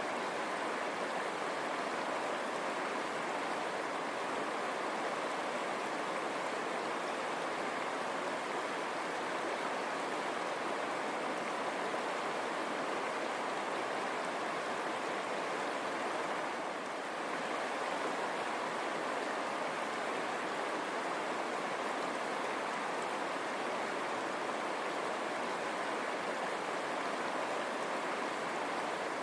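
River water running over stones, a steady rush.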